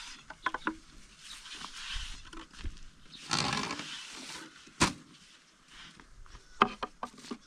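Thin wooden rolling pins clicking and knocking against wooden boards as bread dough is rolled out, with a brief rustle of dough or cloth about three seconds in.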